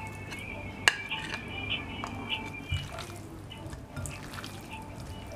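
Wet squelching of raw chicken pieces being rubbed by hand with red chili paste in a glass bowl, with a sharp tap about a second in, over soft background music.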